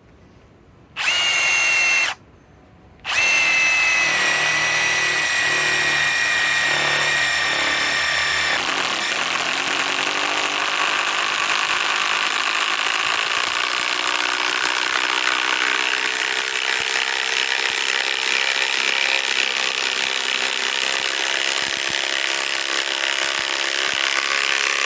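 Ryobi PSBIW25 compact cordless impact wrench driving a large lag bolt into a log under heavy load. It gives a short burst, stops for about a second, then runs without a break for over twenty seconds. In the first few seconds of the long run its whine drops in pitch, then it turns to a rougher, steady clatter as the bolt is forced in.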